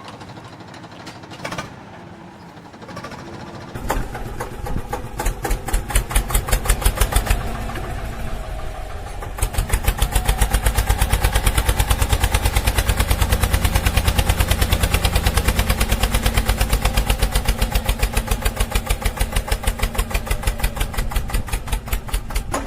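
A small engine starts about four seconds in and runs with a fast, even beat. It gets louder and steadier after about nine and a half seconds.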